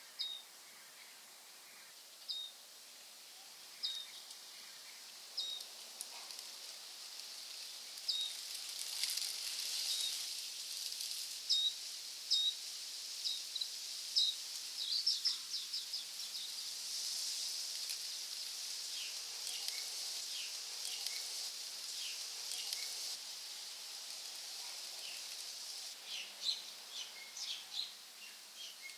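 Forest ambience: a bird repeats a short, sharp call every second or two over a steady high hiss that swells through the middle, and a quick run of chirps comes near the end.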